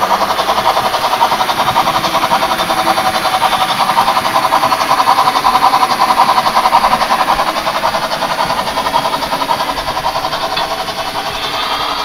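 Märklin model Br 01 steam locomotive running along the layout track, making a fast, even pulsing sound of about four beats a second that gets a little quieter near the end.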